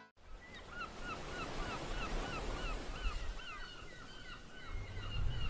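A flock of birds calling over and over, about three short honk-like calls a second, over a low rumble.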